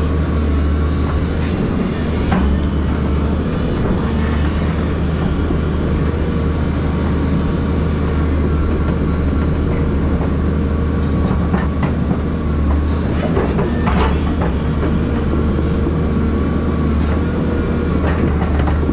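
Volvo EC220DL excavator's diesel engine and hydraulics running steadily under load as its stick rake drags through the soil, with a low drone and a few sharp clanks, one about two seconds in and a louder one near three-quarters of the way through.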